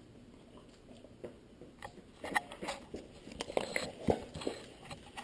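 A dog snapping a treat from a hand and crunching it: a run of short, sharp crunches and clicks starting about two seconds in.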